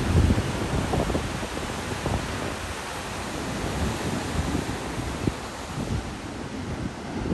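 Wind buffeting the microphone in uneven low gusts over the steady wash of ocean surf breaking, with the strongest gust right at the start.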